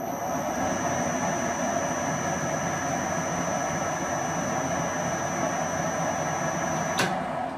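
Metal lathe running with a long steel shaft spinning between the chuck and the tailstock centre: a steady mechanical hum with a high whine. It comes up to speed in the first second, and about seven seconds in it is switched off with a click and starts to wind down.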